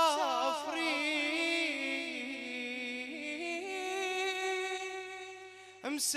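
Male voice of a Shia eulogy reciter (radood) singing a long wordless melismatic phrase, wavering up and down in pitch at first, then settling on a steadier held note that fades near the end.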